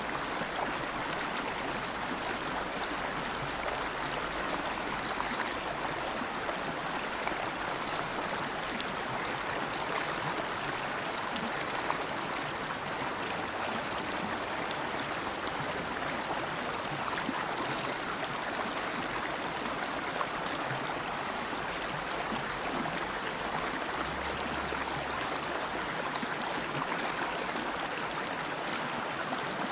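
River water flowing steadily over rocks, a continuous even rush of running water.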